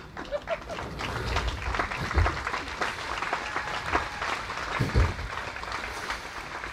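Audience applauding, a dense patter of hand claps, with two low thuds about two and five seconds in.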